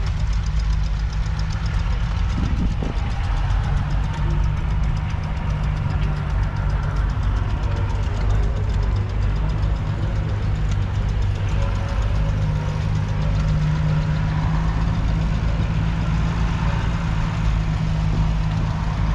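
Perkins A3.152 2.5-litre three-cylinder diesel engine of a 1961 Massey Ferguson 35 tractor idling steadily.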